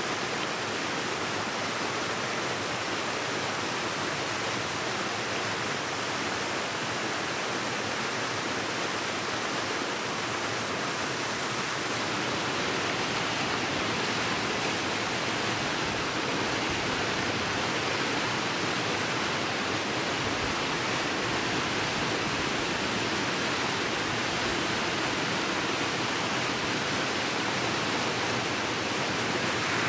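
Waterfall and rapids rushing, a steady, even noise of falling water.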